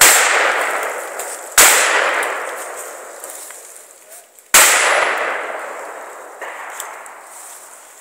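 Three shotgun shots at steel targets: the second about a second and a half after the first, the third about three seconds after that. Each shot is followed by a long fading ring.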